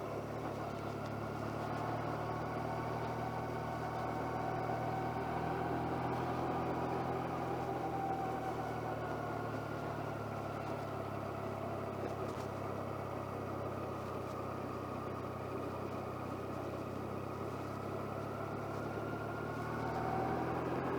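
Motorcycle engine running at a steady cruise with a gently rising and falling whine, picked up by a microphone inside the rider's jacket pocket.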